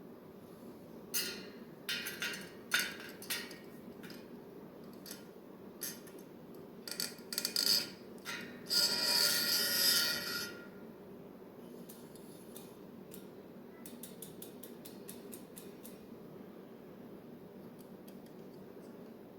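Metal clicks and taps of a spoke wrench working the spoke nipples of a bicycle wheel, with a denser scraping rattle about halfway through, then a run of quick light ticks.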